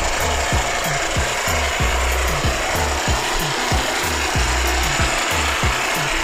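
Model diesel-engine water pump running: a steady rasping noise with regular low knocks, about three a second.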